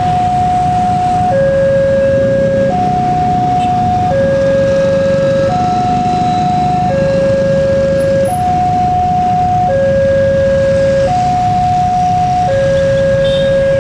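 Railway level-crossing warning alarm sounding a steady electronic hi-lo two-tone, each note held about a second and a half, over the low rumble of an approaching diesel locomotive.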